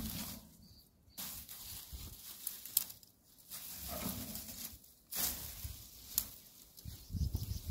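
Machete chopping and slashing through weeds, with rustling of stems and leaves and a few sharp ticks of the blade striking, in short stretches broken by abrupt gaps.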